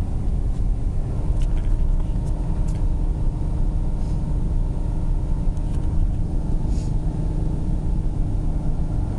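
Car engine and road noise heard from inside the cabin while driving: a steady low rumble with a few faint ticks.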